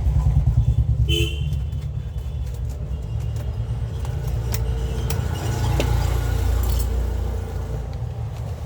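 Steady low rumble of road traffic, with a short vehicle horn toot about a second in. Scattered small clicks of laptop parts being handled and fitted.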